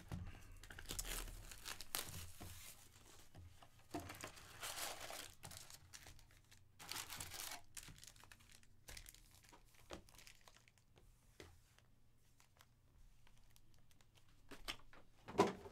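Plastic shrink wrap crinkling and tearing as a sealed box of trading cards is unwrapped, in several rustling bursts through the first half, then quieter rustling of foil card packs being lifted out and handled. A short thump near the end is the loudest sound.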